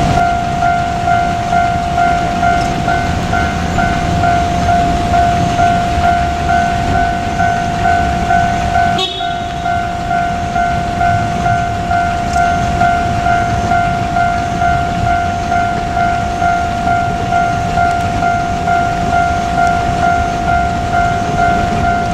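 Japanese level-crossing warning bell ringing its steady, evenly repeating electronic ding over the low rumble of a JR Kyushu KiHa 200 diesel railcar on the line. A brief click and dip in the sound about nine seconds in.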